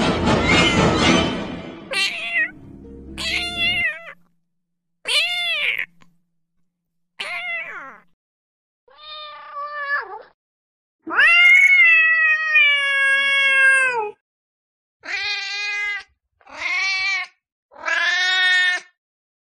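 Cats meowing: a string of about nine separate meows with silence between them. One long, drawn-out meow starts about eleven seconds in and is the loudest.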